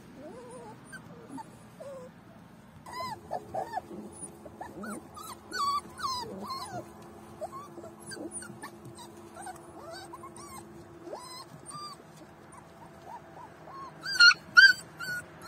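Young puppies whimpering and yipping: many short, high, wavering cries, louder and closer together near the end.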